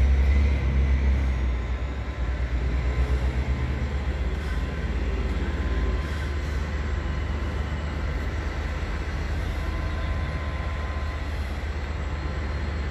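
Container freight train close by, making a steady low rumble, with a low engine drone over it during the first few seconds that then fades.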